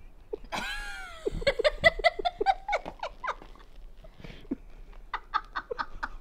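A high squeal sliding down in pitch, then a run of quick laughter. More short laughs come near the end.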